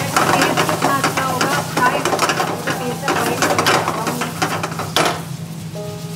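A steel ladle stirring and scraping through sizzling dal makhani in a hot pan over a gas flame, with many quick scrapes and knocks against the pan. About five seconds in there is one sharp knock, and the stirring stops, leaving a quieter simmer over a steady low hum.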